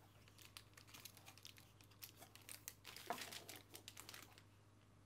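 Faint crinkling of a cream-filled disposable plastic piping bag being handled, a run of small crackles that is busiest about three seconds in.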